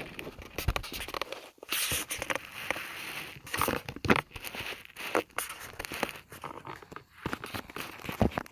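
Fast-food packaging being handled: irregular crinkling and rustling of wrappers and bags, with scattered sharp clicks and knocks.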